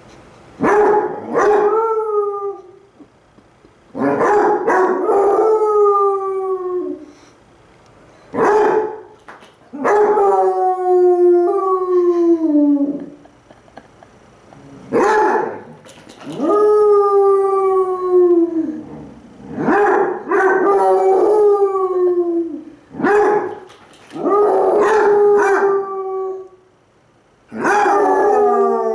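Two basset hounds howling back and forth, about a dozen long howls with short pauses between them, each starting abruptly and sliding slowly down in pitch.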